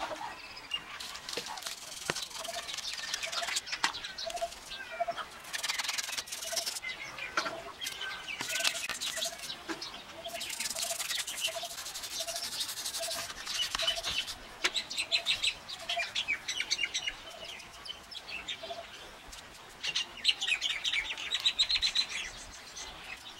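Small birds chirping and twittering, one repeating a short note about twice a second for much of the time, with a burst of quick chirps near the end. Scattered scratchy strokes of a brush scrubbing the motorcycle's engine fins come through as well.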